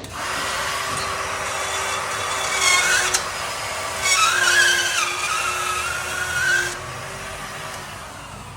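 Handheld drywall router (cut-out tool) running with a steady high whine while its spinning bit cuts through drywall, giving a harsher squeal about three seconds in and again from about four to six and a half seconds. The cutting stops about seven seconds in, and the motor stops shortly after.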